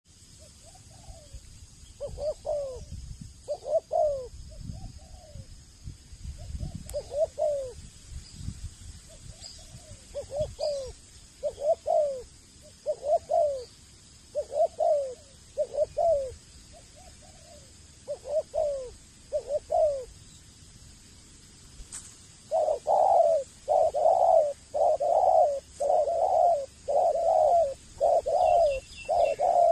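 Male spotted dove cooing: a run of short, falling coo notes, spaced irregularly at first, then louder and in a quick regular string of about one and a half a second for the last seven seconds or so.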